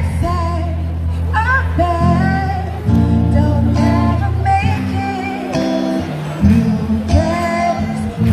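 A woman singing live into a microphone with amplified electric guitar, over sustained low chords that change every second or so.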